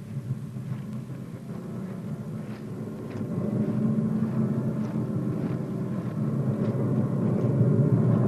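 A low, steady drone of several held deep tones, like an engine or a sustained low score note, growing louder about three and a half seconds in and swelling further toward the end.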